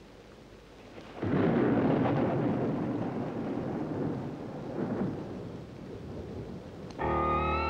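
A thunderclap about a second in, rumbling on and slowly fading with a second swell midway. Music begins near the end.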